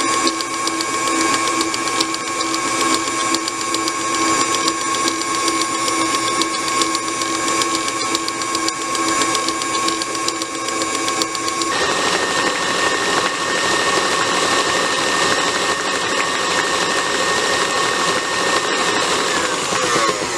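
Electric stand mixer running steadily, its motor whining as the wire whisk beats thin cake batter in the bowl. The motor's pitch changes about twelve seconds in.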